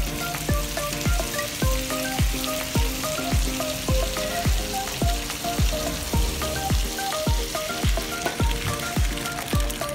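Background music with a steady beat of about two thumps a second and a melody, over the steady sizzle of mung beans and aromatics frying in a wok.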